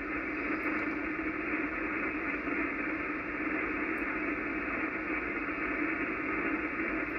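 Receiver hiss and static from an Icom IC-746PRO tuned to the 80-metre band, heard between transmissions with no station on the frequency. The steady noise swells up over the first second, then holds even.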